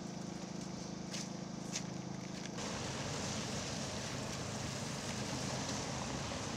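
A steady engine hum, which fits the generator powering the tree's lights, with two sharp clicks over it. About two and a half seconds in it gives way to a slightly louder, even outdoor hiss.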